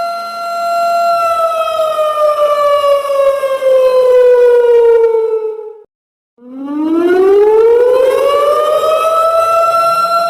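Electronic siren sound effect in a slow wail: a steady tone that about a second in slides slowly down in pitch, cuts out briefly just past halfway, then slides back up and holds at its starting pitch.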